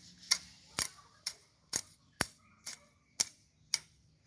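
Grass stems being cut by hand with a blade: eight sharp snips, about two a second, in a steady rhythm.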